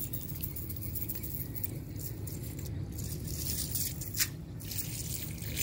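Wet nylon cast net being gathered by hand, its chain leadline clinking and the mesh rustling in scattered small clicks, one sharper click a little past four seconds in, over a steady low rumble.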